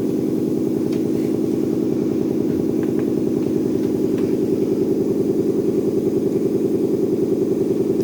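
Machine motor running steadily, a hum with a fast, even pulse, with a few faint clicks.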